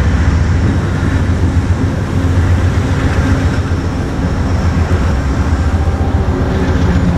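Steady low engine rumble from an unseen vehicle, with a few low humming tones running through it.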